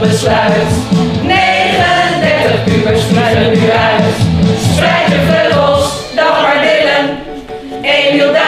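A mixed group of adult men and women singing a song together in unison, with a low instrumental accompaniment that drops out about six seconds in, leaving the voices alone.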